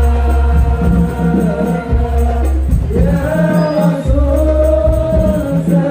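Loud music through a big PA sound system: singing over deep bass notes, each held about two seconds.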